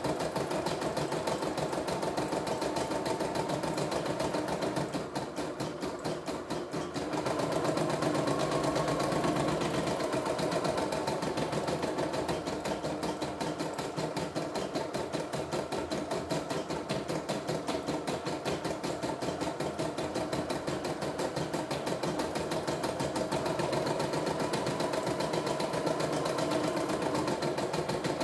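CNY E960 portable embroidery machine stitching out a floral design: the needle runs in a rapid, even rhythm as the hoop carriage moves the fabric. The sound drops briefly about five seconds in, then comes back at full pace.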